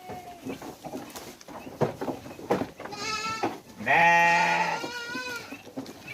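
Goats bleating: a couple of short bleats about three seconds in, then one long, loud, deep bleat about four seconds in, and a shorter one after it. Scattered sharp knocks and clicks come before the bleats.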